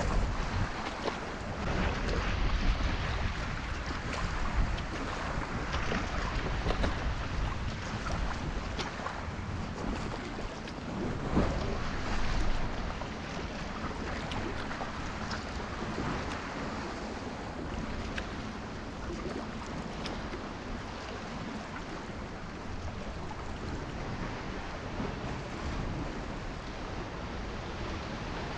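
Sea water sloshing and waves splashing around a kayak, with some wind noise on the microphone. A louder splashing stretch comes about eleven seconds in.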